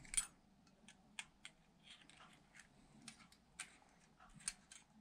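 Faint, irregular light clicks and taps of small metal and plastic construction-toy parts (nuts, screws, metal strips) being picked up and handled, the loudest just after the start.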